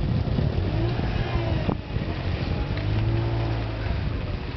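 A motor engine running, its pitch rising and falling twice, with wind rumbling on the microphone.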